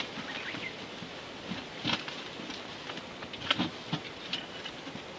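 Rabbits shuffling and nibbling in straw and fresh-cut grass: irregular soft rustles and small crackles, with a louder rustle about two seconds in and another about three and a half seconds in.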